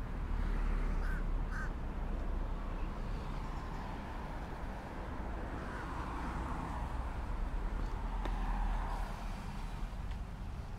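Two short, harsh bird calls about a second in, over a steady low rumble of outdoor noise.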